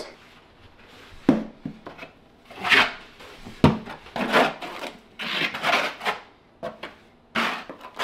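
Trowel scooping thin-set mortar from a bucket and scraping it across a wooden OSB subfloor: a series of short, irregular scrapes.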